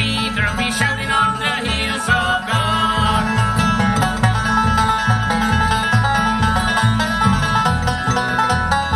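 Live bluegrass band playing an uptempo tune: rolling five-string banjo picking over acoustic guitar, fiddle and an upright bass keeping a steady beat.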